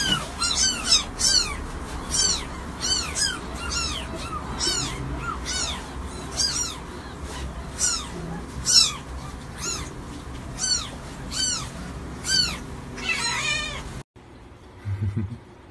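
Young kittens mewing over and over: short high-pitched cries that rise and fall, about two a second, breaking off abruptly near the end.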